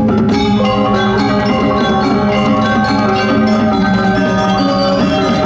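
Balinese gong kebyar gamelan playing: many bronze metallophones ringing together in a dense, continuous stream of notes at a steady, loud level.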